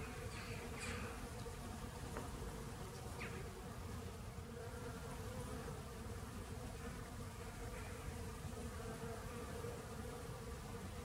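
Honeybees foraging on flowering ivy, their wings making a steady buzzing hum.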